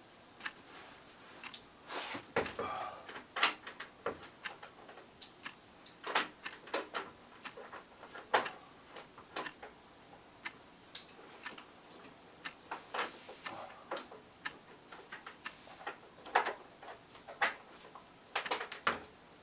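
Irregular clicks, taps and knocks of a PVC window sash and its hinge hardware being handled and fitted onto new hinges, with a few louder knocks about 3.5, 6 and 8.5 seconds in.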